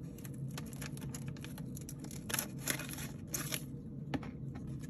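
Plastic wrap crinkling and corrugated cardboard rustling as hands work a card out of a plastic-wrapped cardboard mailer: irregular crackles and scrapes, busiest in the middle.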